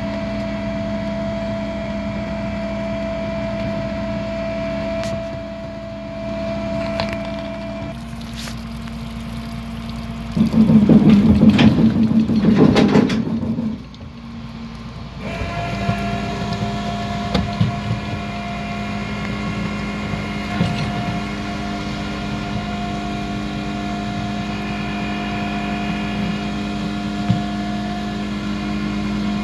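A vehicle running with a steady hum. It gets much louder and rougher for about three seconds midway, dips, then settles back to the same steady hum.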